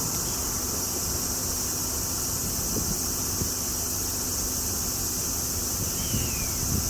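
Steady high-pitched insect drone with faint low wind rumble, and one short descending bird call about six seconds in.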